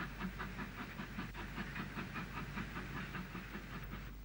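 Steam tank locomotive, an NCC WT class 2-6-4T, working a train with a rapid, steady beat of exhaust chuffs, about five a second, fading near the end.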